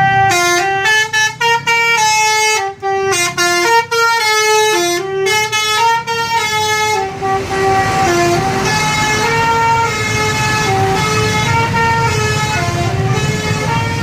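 Tour bus's "telolet" musical air horn playing a tune of short stepped notes, crisp and loudest in the first half, then going on blurrier as the bus passes and moves off. A low engine rumble lies underneath.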